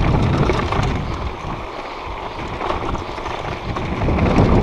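Wind buffeting the microphone of a chest-mounted GoPro with a low, uneven rumble, over the steady rush of a creek.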